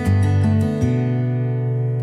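Background music: an acoustic guitar playing, with a chord struck just under a second in and left to ring.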